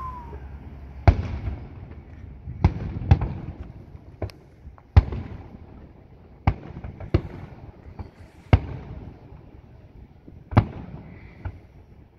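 Aerial firework shells bursting: about ten sharp bangs at irregular intervals, each trailing off in an echo.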